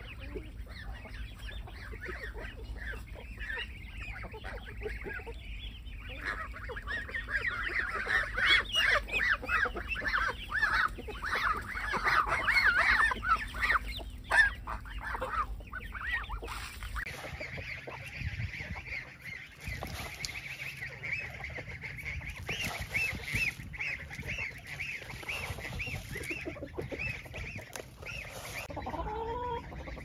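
Farm poultry calling: a loud, dense clamour of overlapping honking calls in the middle, then, after a break, a steady run of repeated calls at about two a second.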